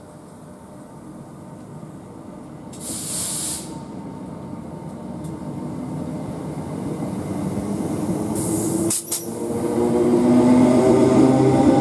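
Thameslink Class 319 electric multiple unit pulling away and accelerating past, getting steadily louder. Short bursts of air hiss come about three seconds in and again near nine seconds, and then a hum of several tones from the traction equipment rises and grows loud toward the end.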